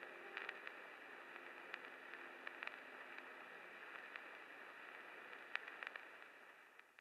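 Faint static hiss with scattered crackles under the last held notes of the soundtrack music, which die away over the first few seconds. The hiss fades and cuts to silence near the end.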